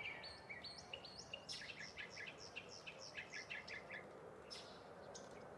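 Faint bird song: a quick run of short, high chirping notes over a low background hiss, with a few scattered chirps after it.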